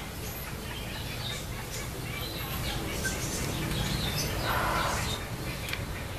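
Small birds chirping now and then over a steady low rumble, with a brief splash of water from the macaque moving in its tub a little after halfway through.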